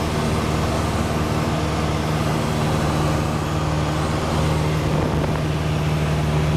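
Steady drone of a Cessna 172's piston engine and propeller heard inside the cabin in flight, with a constant rush of airflow over the airframe.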